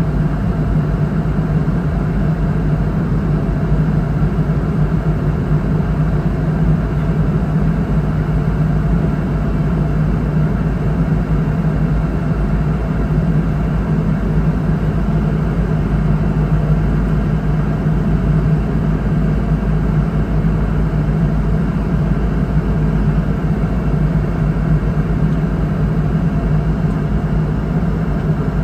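Steady drone inside the cabin of a Boeing 717-200 airliner, from its rear-mounted Rolls-Royce BR715 turbofans and the rush of air. It is an even, unchanging noise with a strong deep hum.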